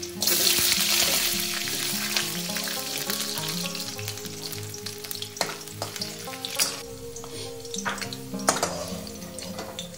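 Carrot pieces frying in hot refined oil in a steel kadai: a loud sizzle bursts up as they go into the oil at the start, then eases into a steady frying hiss. A slotted spatula clinks against the pan a few times in the second half as they are stirred.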